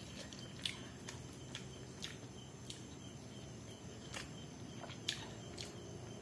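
Faint eating sounds: soft mouth clicks and smacks of chewing, scattered irregularly about once every half second to second, over a low steady hum.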